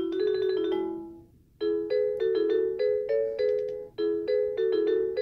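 A musical nightlight toy plays an electronic melody of short ringing notes. About a second in, a quick run of notes ends the tune, there is a brief pause, and the melody starts over.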